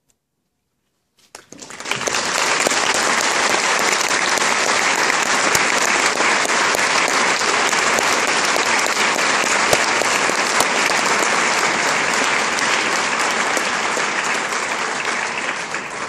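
Audience applause bursts out about a second in after near silence, then holds steady, easing off slightly near the end.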